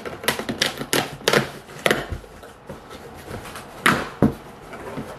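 A cardboard shipping box being opened by hand: irregular sharp cardboard cracks and taps as the flaps are pulled apart, the two loudest about four seconds in.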